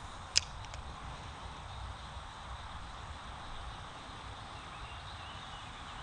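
A single sharp click a little under half a second in, followed by two faint ticks, over steady outdoor background noise.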